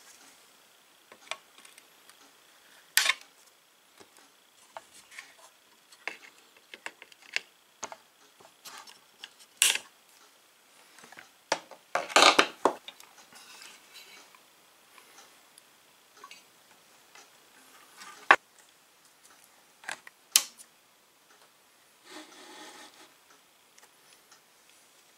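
Diagonal cutters snipping component leads on an old tube radio's circuit board, among scattered sharp clicks and knocks of hand tools and the metal chassis being handled. A short rubbing noise comes near the end.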